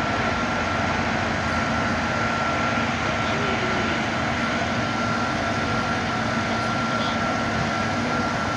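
Silage machine running steadily: an even mechanical noise with a constant high whine and a low hum.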